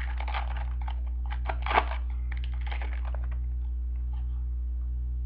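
Trading cards being handled and sorted: a string of light clicks and rustles, strongest in the first half, over a steady electrical hum.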